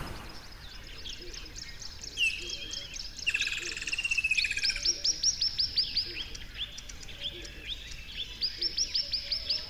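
Songbirds calling and singing. There are two runs of quick, steeply falling whistled notes, each about a second and a half long, and a buzzy call about three seconds in.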